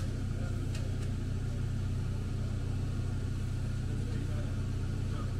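A steady low drone from a running engine or motor, with a couple of faint clicks near the start.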